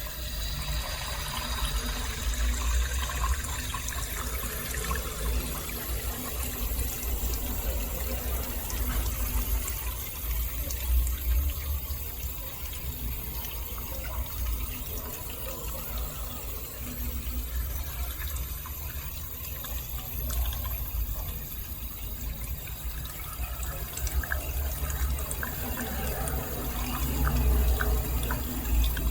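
Beko DFN05211 dishwasher running, with water splashing and sloshing inside the tub over a low, wavering pump hum.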